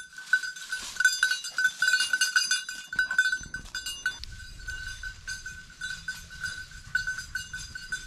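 A bird dog's collar bell jingling in quick, uneven strikes as the dog moves through the brush while hunting.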